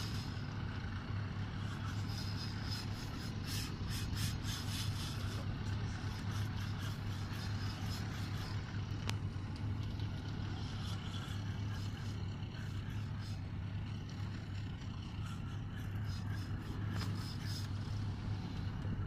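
Boat engine running steadily at idle with a low hum. Clusters of short clicks come about four seconds in and again near the end.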